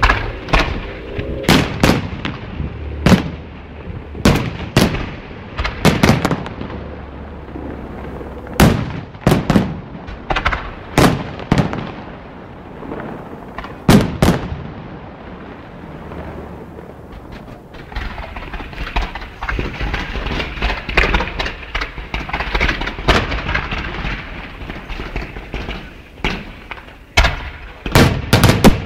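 Fireworks going off: sharp, loud bangs one after another, roughly one a second at first, thinning out in the middle under a steady crackling hiss, then a quick cluster of bangs near the end.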